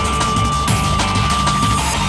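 Background music with a drum kit and bass keeping a steady beat, and a held high note over most of it.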